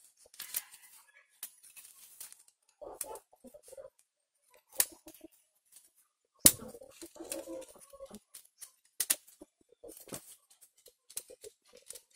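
Sharp plastic clicks and light rattling from a loose plastic wall socket and its faceplate being handled and taken apart. The clicks come irregularly, several seconds apart in places.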